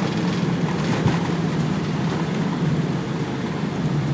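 Airbus A321 on its landing roll, heard from inside the cockpit: a steady noise of engines and wheels on the runway, with a single sharp knock about a second in.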